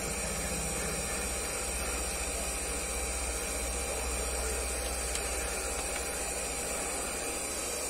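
Electric heat gun running steadily, its fan blowing a strong, even hiss of hot air onto a broken plastic fridge-door shelf to soften it for welding.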